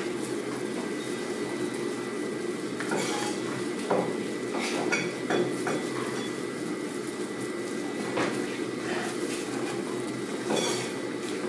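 Gloved hands handling and pulling at a raw skate on a plastic cutting board: wet handling noises with scattered short knocks and clinks, over a steady hum.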